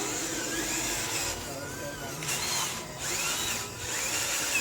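Small electric motor of a toy RC tractor whining, its pitch rising and falling several times as it speeds up and slows down.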